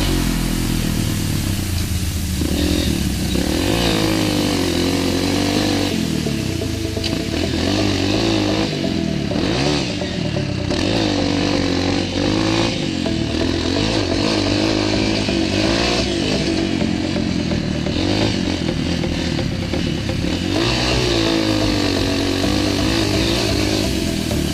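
Dirt bike engine revving up and down as the bike is ridden along a rough dirt trail, heard from on the bike.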